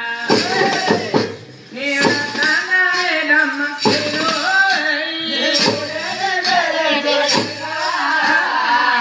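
Live folk singing, a voice wavering and sliding in pitch, over a barrel drum beaten by hand and clashing metal hand cymbals. The music drops out briefly about a second in.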